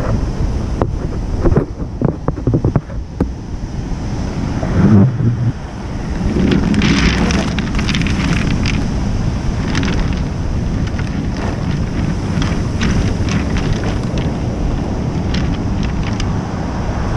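Wind buffeting the microphone over surf breaking on a pebble beach. In the first few seconds there are close knocks and rustling as a woven plastic sack is handled, and after that a steady rush of wind and waves with scattered crackles.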